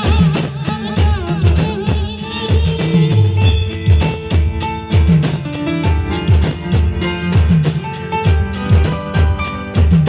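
Loud live band music from a village brass-and-drum band: a melody over a steady driving beat of large bass drums and snare drums.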